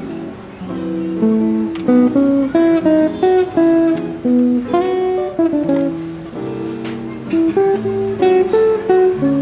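Guitar music: a plucked melody of single notes, one after another.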